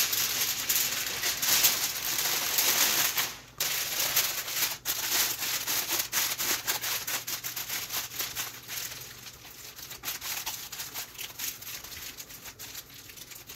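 Aluminium foil crinkling and crackling as it is folded and crimped shut by hand. Loudest in the first few seconds, with a short break about three and a half seconds in, then the crinkling goes on more softly.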